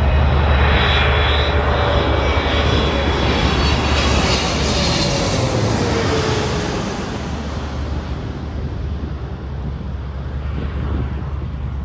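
A Boeing 777-300ER's twin GE90 turbofans passing low overhead on final approach. Loud jet noise with a whine that drops in pitch as the plane passes, then the sound fades away over the last few seconds.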